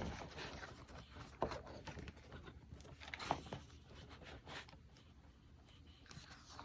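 Faint paper rustling and a few light taps as the pages of a desk calendar are turned by hand.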